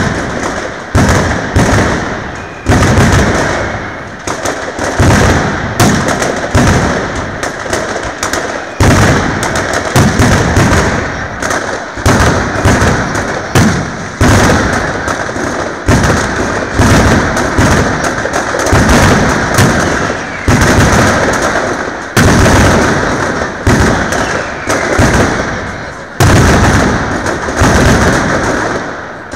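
Mascletà: a dense, unbroken barrage of ground-level firecracker bangs (masclets), with sudden louder salvos every second or two.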